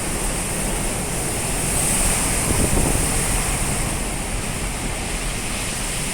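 Typhoon wind and rain: a steady rushing noise that swells a little two to three seconds in.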